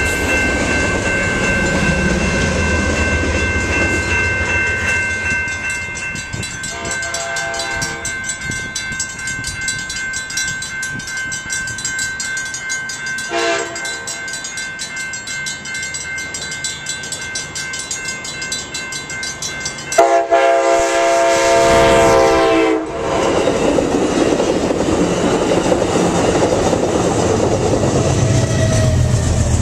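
Passenger train cars rolling by with wheel clatter while grade-crossing warning bells ring; an Amtrak diesel locomotive then sounds its multi-tone horn, a short blast about 7 s in, a shorter one near 13 s, and a long loud blast about 20 s in, before the locomotive and cars pass.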